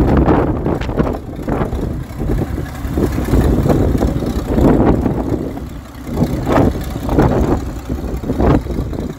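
A motor vehicle's engine running, with a loud, uneven rumble that swells and dips.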